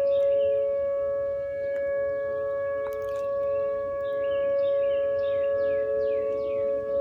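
Outdoor tornado warning siren sounding a steady two-note tone during its scheduled test, its level swelling and dipping slowly. Birds chirp over it, with a run of quick falling chirps in the second half.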